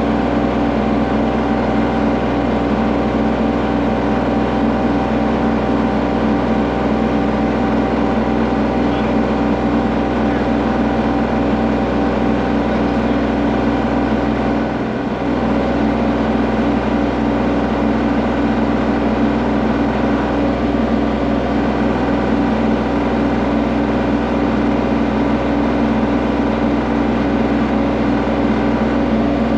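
Kubota L3301 tractor's diesel engine running steadily, with a brief dip about halfway.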